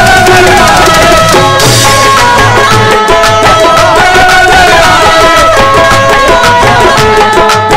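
Qawwali music with no words sung: harmonium playing a melody in held notes over a steady tabla rhythm.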